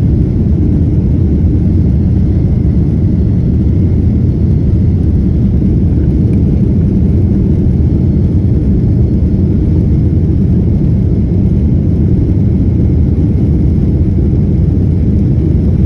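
Boeing 767-332ER's twin turbofan engines at takeoff thrust during the takeoff roll, heard from inside the passenger cabin, together with the rumble of the wheels on the runway. The noise is a loud, steady, deep rush that holds level throughout as the jet accelerates toward rotation speed.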